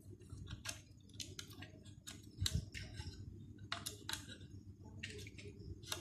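Irregular small clicks and taps of cable cores being pushed into the terminals of a plastic wall socket, with one duller knock about two and a half seconds in.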